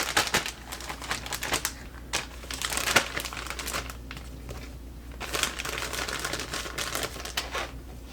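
Plastic freezer bag crinkling and rustling as cauliflower florets are dropped in and shaken down to settle, an irregular run of crackles and light taps.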